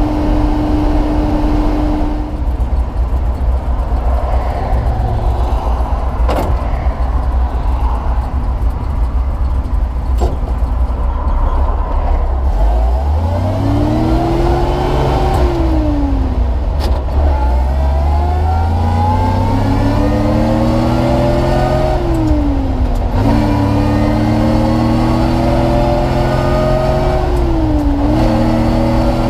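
1946 Chevrolet 2-ton truck's straight-six engine, heard from inside the cab while carrying a load, running low at first and then pulling away. The engine note climbs, drops sharply at each of three upshifts about halfway through, near two-thirds and near the end, and climbs again.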